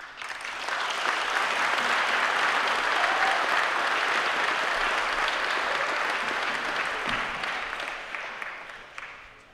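An audience applauding: steady clapping that starts at once, builds within the first second, and dies away near the end.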